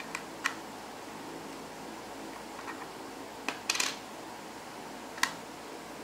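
Plastic LEGO pieces clicking and knocking as a LEGO puzzle box is pulled apart and its parts are set down on the table: two sharp clicks near the start, a short clatter in the middle and one more sharp click near the end, over a steady faint hiss.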